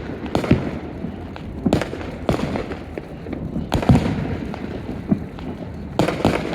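Fireworks going off: a string of sharp bangs and deeper booms at irregular intervals over a continuous rumble, the loudest bang about four seconds in.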